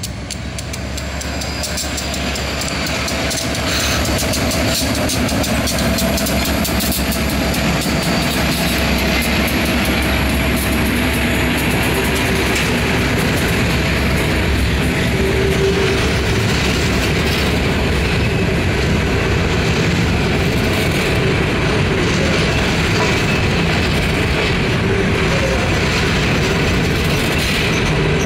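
EMD GP40-2 diesel locomotive, a 16-cylinder two-stroke, working as it comes up and passes close by, growing louder over the first few seconds, then a train of steel open-top hopper cars rolling steadily past with their wheels clacking and rumbling on the rails.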